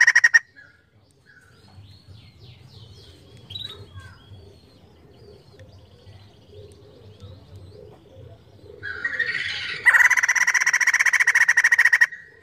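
White-crested laughingthrush calling. A loud, rapid cackling call cuts off just after the start, soft chirps and squeaks follow for several seconds, then the bird builds into a second loud, rapid cackle near ten seconds that lasts about two seconds.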